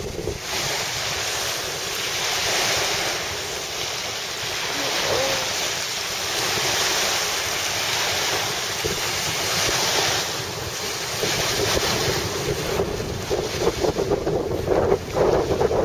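Wind buffeting the microphone over the steady wash of choppy sea surf, swelling and easing a little.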